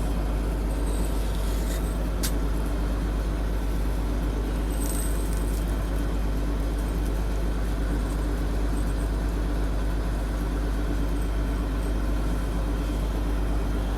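Combine harvester running steadily, a low, even drone with a faint click or two.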